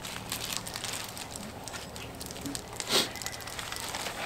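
Packing wrap and paper crinkling and rustling as they are handled, a run of short crackly rustles with a louder one about three seconds in.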